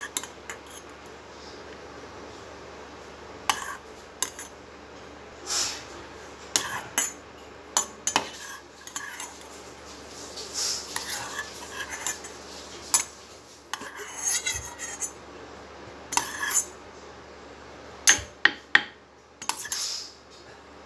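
Cutlery and dishes handled in a kitchen: irregular sharp clinks and knocks, a dozen or so, with a few longer scraping stretches.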